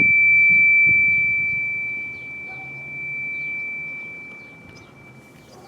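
A struck metal object ringing with one clear high tone, slowly fading away.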